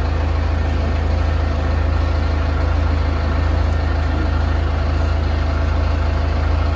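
A heavy engine idling steadily, a deep even drone with no change in speed.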